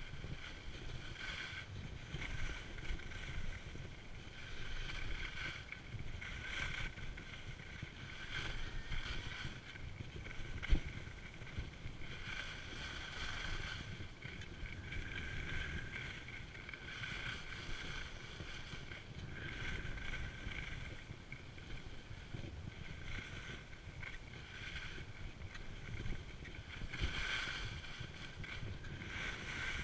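Skis on a groomed piste: the edges scrape and swish on the snow, swelling and fading with each turn about every two seconds, over a low rumble of wind on the microphone. One sharp click about eleven seconds in.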